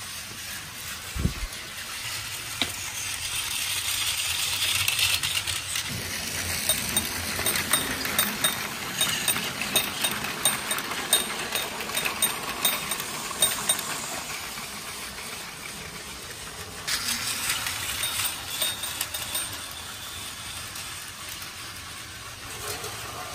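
Battery-powered plastic toy trains running on plastic track. A motor whirr builds over the first few seconds, then a quick run of clicks and rattles as a train passes over the track joints, with another short rattle later.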